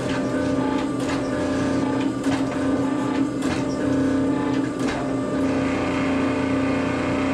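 Forge running with its blower giving a steady hum over a rushing burn, with scattered sharp clicks through it.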